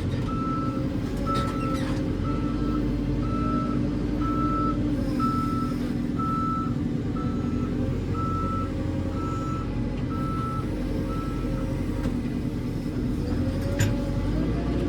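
Backhoe loader's reversing alarm beeping about once a second over its diesel engine running steadily. The beeps stop about twelve seconds in while the engine keeps running, and there is a sharp clank near the end.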